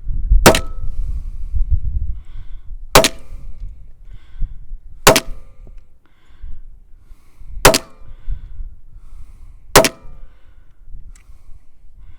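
Hi-Point JHP .45 ACP pistol fired five times, slow aimed shots about two to two and a half seconds apart, each a sharp crack with a brief ring after it. Low wind rumble on the microphone underneath, strongest in the first two seconds.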